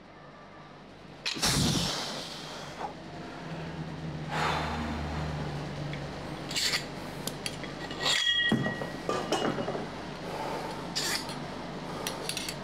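A loaded EZ-curl bar set down on the floor with a heavy thud about a second in, then metal weight plates knocked and slid on the bar's sleeves in a run of clanks and clinks, one ringing clink about eight seconds in.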